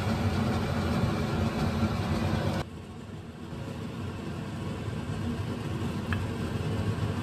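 Steady low machine hum with a drone of low tones; it drops sharply in level about two and a half seconds in, then slowly builds again. A faint click near the end.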